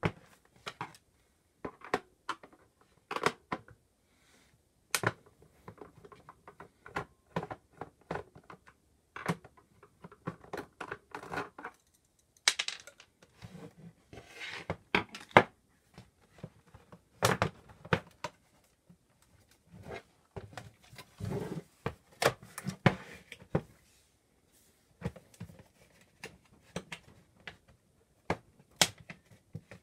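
Irregular clicks, knocks and rattles of a Roland PR-100 sequencer's case being turned over, set down and handled on a wooden workbench, its top cover being worked loose.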